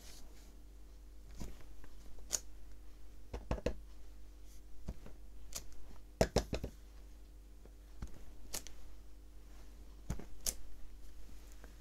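Clear stamp on an acrylic block being handled and pressed onto paper: a dozen or so scattered light clicks and knocks of the block against the paper and desk, with a pair of louder taps a little past halfway.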